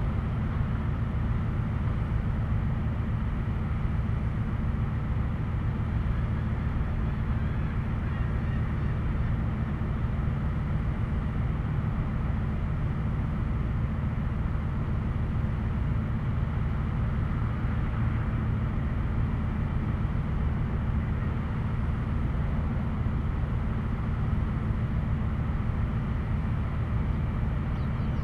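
Steady outdoor background noise, mostly a low rumble, with no distinct events.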